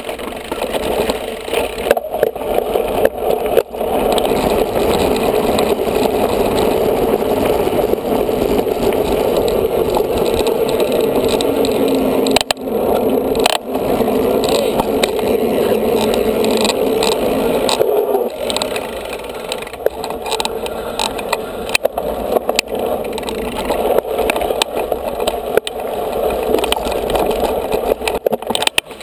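Mountain bike riding noise picked up by a camera on the bike: tyres rolling over gravel and tarmac, with the bike and mount rattling and knocking over bumps.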